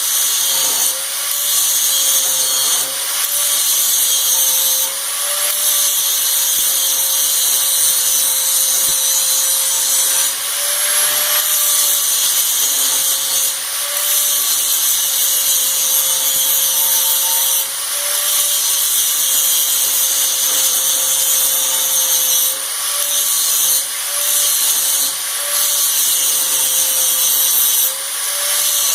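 Electric grinder running steadily while grinding steel: a loud motor whine over harsh hiss, its pitch wavering up briefly several times as pressure on the work eases.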